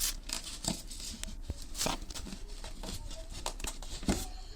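Hands handling packaging while unboxing a camera flash: scattered rustles, taps and light clicks, a little louder about two seconds in and again near the end.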